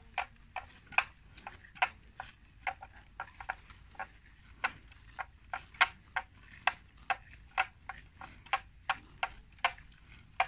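Water buffalo tearing off and chewing plants: a run of sharp, irregular snapping clicks, about two or three a second, some much louder than others.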